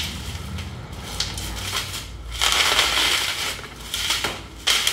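Clear plastic bubble wrap crinkling and rustling as it is pulled off an item by hand, louder from about halfway through.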